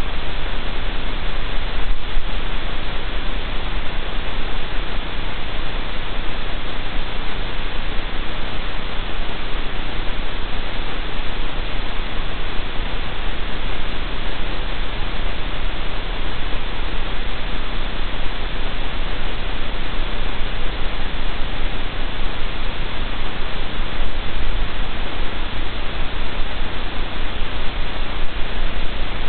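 Steady, loud static hiss from the den camera's microphone feed, even and unbroken, with a low rumble beneath it.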